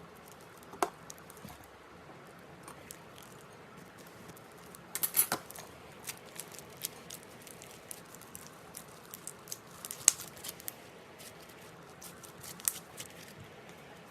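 Slime being handled by hand: scattered small sticky clicks and crackles. A dense run of pops comes about five seconds in, and single sharp clicks come near one second and ten seconds in.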